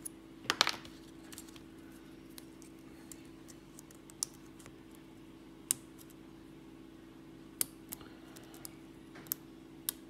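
Sparse, irregular small metallic clicks of a hook pick and tension wrench working the spool pins inside a brass Lockwood 334 padlock cylinder, the loudest cluster about half a second in. A click near the end comes as the plug turns into a false set.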